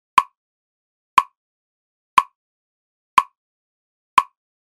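A single sharp tick once every second, five in all, with silence between each: a tick-tock pacing beat to breathe and focus by.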